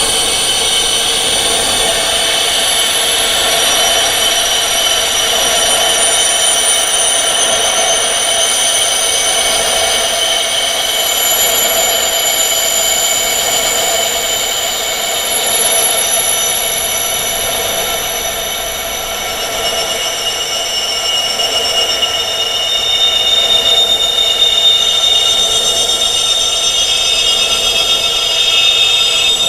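Metal wind chimes ringing without pause, many long overlapping tones sounding together, mostly high-pitched, at an even level throughout.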